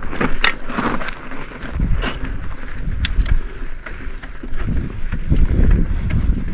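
Full-suspension mountain bike riding over a rocky trail: a steady low rumble from the tyres on rock, with many sharp knocks and rattles from the bike.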